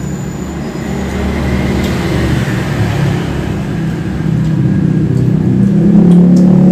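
A motor engine running steadily, growing louder toward the end.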